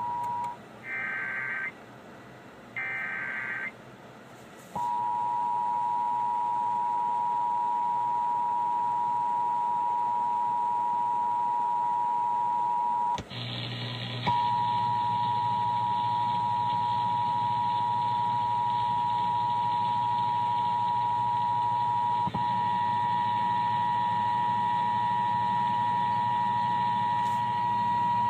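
Emergency Alert System test over the radio. Two short bursts of digital SAME header data come first, then the EAS attention signal: the steady two-tone 853 Hz and 960 Hz alert tone. It runs for over twenty seconds with a brief break about thirteen seconds in, after which a low hum sits under it.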